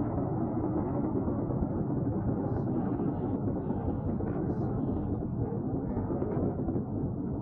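Steady low rumbling noise with no distinct events, with faint higher hiss flickering in the middle.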